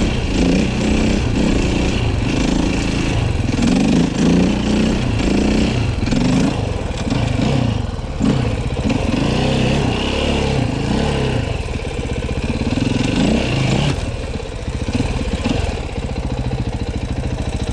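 KTM 450 EXC-F single-cylinder four-stroke enduro engine revving up and down through repeated accelerations. About 14 seconds in it settles to a steadier, lower running with an even pulsing beat.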